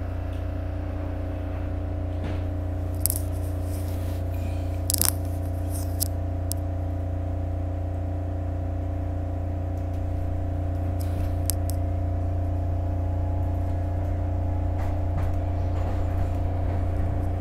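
Steady low hum with several constant tones inside a Market-Frankford Line car, with a few short clicks and rattles. The running noise grows slightly in the second half as the train gets under way.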